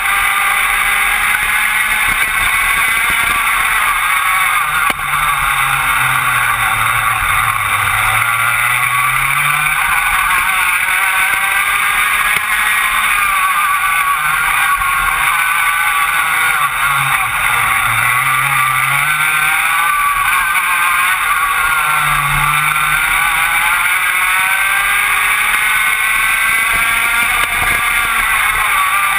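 Rotax Max 125cc two-stroke kart engine at racing speed, its pitch dropping under braking into corners and climbing again on the straights, over and over.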